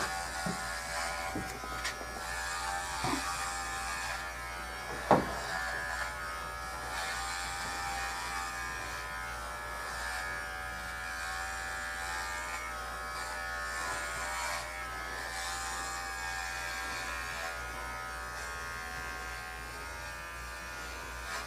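Cordless pet clippers running with a steady buzz as they are worked through a dog's coat. There is a short, louder sound about five seconds in.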